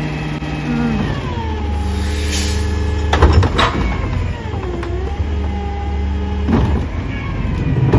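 CNG-powered side-loading garbage truck running at the curb: a steady engine hum with a wavering whine that picks up about a second in. Sharp clanks come a little after three seconds in and once more near the end.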